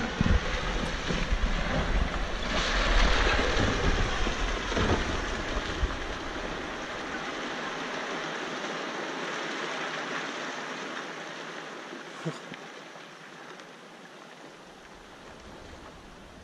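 Rock slide: a continuous rushing rumble of falling rock, loudest in the first few seconds, then fading away steadily.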